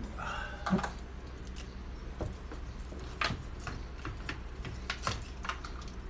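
Scattered light clicks and knocks of plastic parts being handled on a top-loading washing machine, over a steady low hum.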